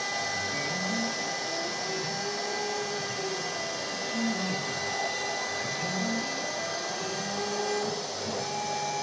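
CNC router carving a wooden board: a steady high whine from the spindle over the hiss of dust extraction through the brush dust shoe, with the axis drive motors' lower pitch gliding up and down every few seconds as the machine traces curved cuts.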